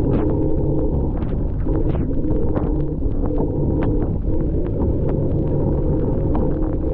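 Wind rushing over the microphone while riding, over a steady low drone, with scattered sharp ticks throughout.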